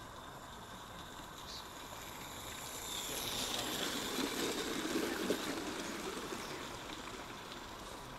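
Small-scale garden-railway model train running past, its sound swelling to a peak about halfway through and fading away again.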